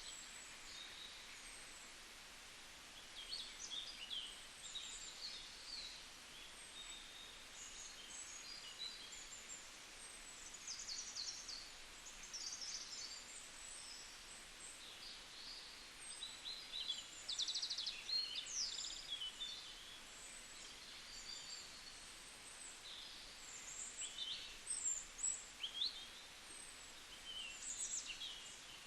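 Small songbirds chirping and trilling, many short high calls overlapping in no fixed rhythm, over a faint steady hiss.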